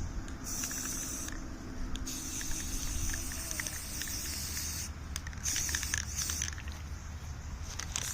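Aerosol spray paint can (Rust-Oleum flat camouflage green) hissing in several bursts of about one to three seconds, with short gaps between them, as paint is sprayed onto a helmet liner.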